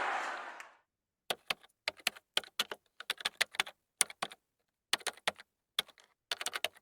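A noisy rush fades out in the first moment, then a run of irregular quick clicks in clusters, like typing on a keyboard.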